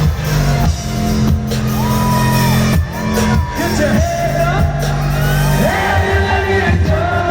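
Live rock band playing in an arena, with sung vocals over sustained heavy bass notes, and the crowd whooping and shouting along.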